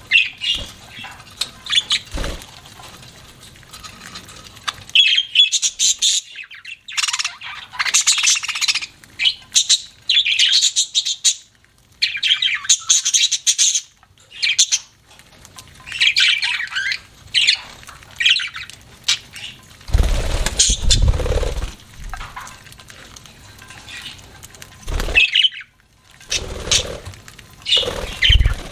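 Pet budgerigars chirping and squawking in quick, broken bursts of high calls, with a few low thuds about two-thirds of the way through and near the end.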